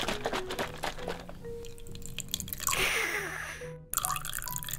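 Background music over crinkling and tapping from a paper milk carton being handled, then strawberry milk starting to pour into a hollow chocolate high-heel shoe near the end.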